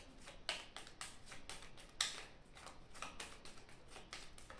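A deck of playing cards being shuffled by hand: a faint run of irregular flicks and snaps, about three or four a second.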